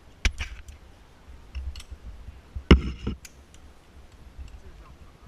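Metal clicks of carabiners and a zip-line trolley being clipped onto the steel cable: a few sharp clicks, the loudest about two and a half seconds in.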